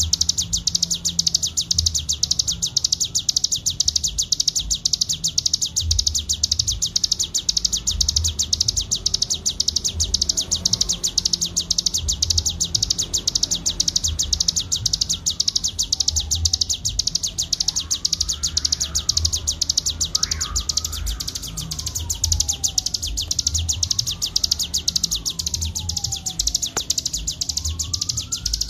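Ciblek gunung (a prinia) singing a very fast, unbroken, high-pitched trill, the continuous 'ngebren' song. From about halfway on, a fainter wailing tone rises and falls every few seconds beneath it.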